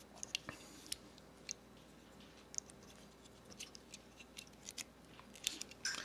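Faint, scattered small metallic clicks from a Leatherman Surge multi-tool being handled as its scissors are pulled out and unfolded, the clicks coming more often in the second half.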